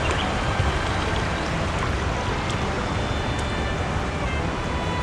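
River water running over a concrete ford and spilling off its edge in a small cascade: a steady rush with no breaks.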